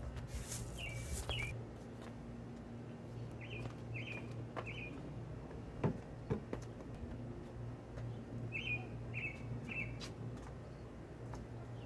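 A bird chirping in three short groups of two or three quick notes, over a steady low hum, with a couple of soft knocks near the middle.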